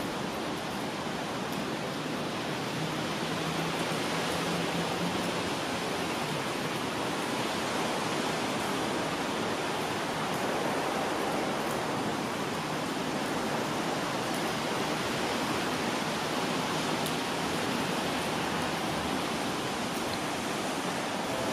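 Steady, even hiss of rain falling in a misty drizzle.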